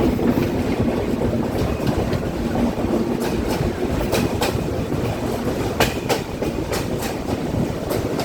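Benapole Express passenger coaches rolling slowly along the track: a steady rumble with scattered sharp wheel clicks over the rails. The train is running slowly over a stretch where the line's sleepers are being replaced.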